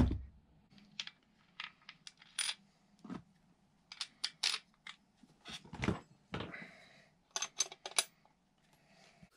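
Scattered clicks, knocks and light metallic clinks from handling a chainsaw crankcase and hand tools on a workbench, with one sharp knock at the start and a quick run of clinks near the end as a metal T-handle wrench is picked up.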